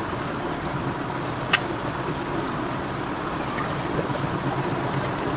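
Steady background noise with a faint low hum, broken by one sharp click about one and a half seconds in.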